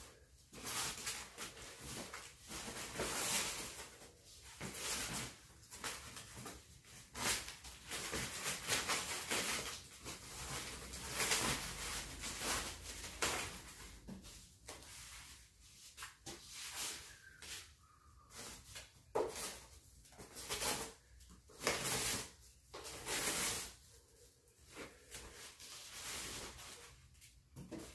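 Foam packing wrap and plastic sheeting rustling and crinkling in irregular bursts as they are pulled and handled.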